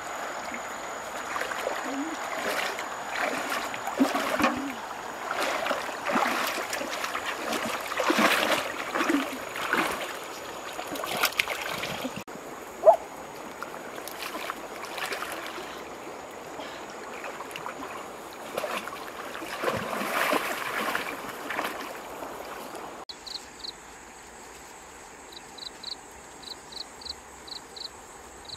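River water sloshing and splashing in uneven swells as a person wades through a shallow current pushing a large floating iron pan, with one sharp knock about halfway. Near the end the water gives way to insects chirping in short, high, evenly repeated pulses.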